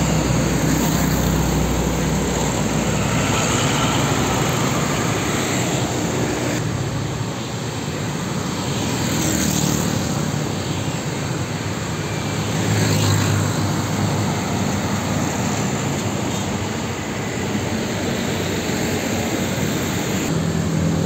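Road traffic passing close by: heavy diesel trucks and motorbikes going past, a steady mix of engine hum and tyre noise that swells and fades as vehicles pass. The sound changes abruptly about seven seconds in and again near the end.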